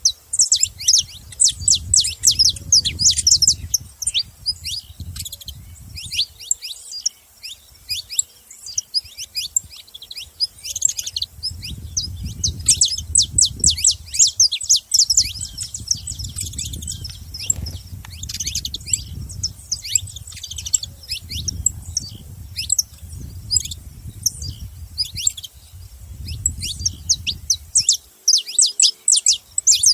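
Saffron finches chirping in rapid bursts of short, high chips, with a low rumble underneath.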